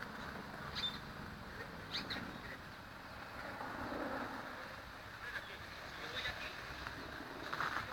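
Outdoor city park ambience: a steady hum of distant traffic with a few short bird chirps.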